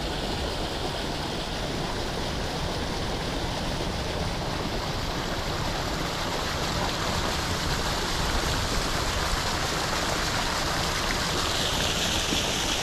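Water jets from a row of pipes along the pond wall pouring into the pond and churning the surface, a steady rush of splashing water.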